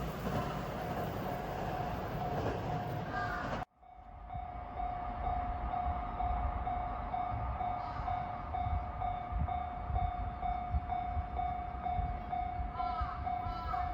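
Japanese level-crossing warning bell ringing in an even, repeating electronic ding. For the first few seconds it rings over the loud rushing rumble of a JR West 521 series electric train passing. That noise cuts off abruptly about four seconds in, and the bell then rings on over a low rumble.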